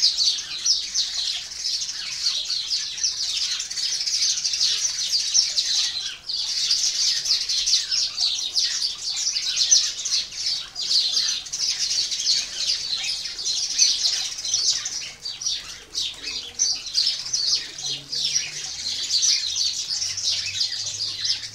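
A flock of sparrows chirping continuously from the ivy, many short calls overlapping, with a brief lull about six seconds in.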